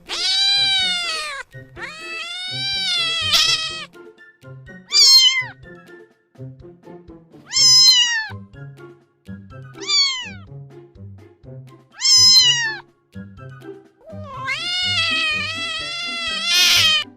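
Domestic cat meowing about seven times: the first two and the last meows are long, rising and then falling in pitch, and the ones between are short and falling. Soft background music plays underneath.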